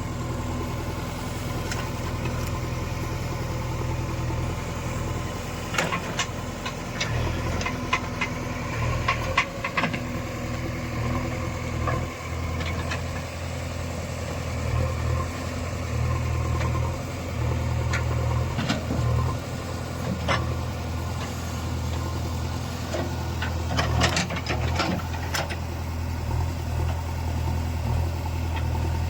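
Diesel engine of a JCB 3DX backhoe loader running steadily, its note rising and falling several times as it takes load. Sharp knocks and clanks come at intervals, most of them in a cluster about a third of the way in and another near the end.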